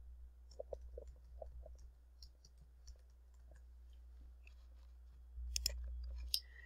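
Faint clicking of computer keyboard keys as a file name is typed, then a sharper mouse click about five and a half seconds in, with a low hum growing louder near the end.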